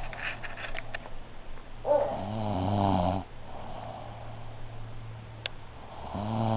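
A woman snoring in her sleep, with snores a few seconds apart: the tail of one at the start, a full snore about two seconds in lasting about a second, and another beginning near the end.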